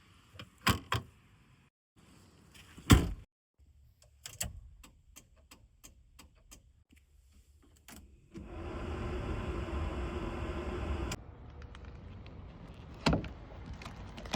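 VW T3 van mechanisms working in turn: door knocks and latch clicks, the loudest about three seconds in, then a run of light clicks. Next comes a steady motor whir with a held tone for about three seconds that cuts off suddenly, leaving a low hum and a further thud near the end.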